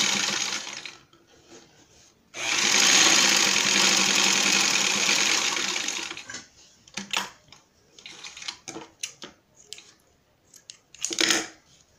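Sewing machine stitching a hem in two runs. The first stops about a second in, and the second starts about two seconds in and runs for about four seconds. After it come scattered light clicks and rustles as the fabric and machine are handled.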